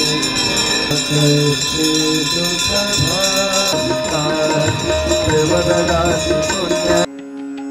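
Hindu devotional aarti song: a singing voice gliding between notes over held instrumental tones. About seven seconds in it cuts abruptly to a quieter passage.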